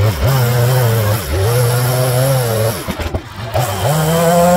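Echo CS-3510 two-stroke chainsaw running at high revs while carving wood. Its pitch sags and recovers several times as the chain bites. About three seconds in the engine speed briefly drops and picks up again, then it holds at steady high revs near the end.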